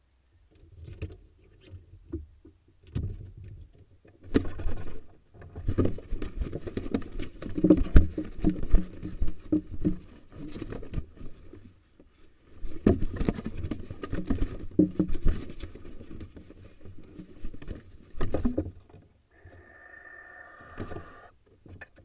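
A kestrel and a barn owl fighting inside a wooden nest box: wings beating and bodies scuffling and thumping against the nest litter and box walls, in two long bouts with a short lull between them. A brief bird call comes near the end.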